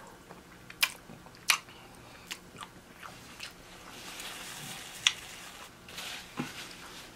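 Close-miked eating: a person chewing and biting food, with several sharp crunchy clicks, the loudest near one second in, at one and a half seconds, and about five seconds in.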